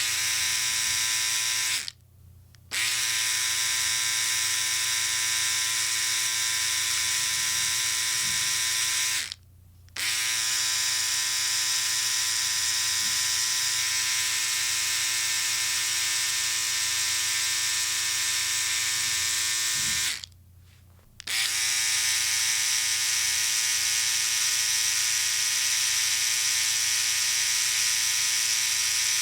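Electric shaver buzzing steadily, with an even hum and a hiss above it. It is switched off and back on three times: about two seconds in, near the middle, and about two-thirds of the way through.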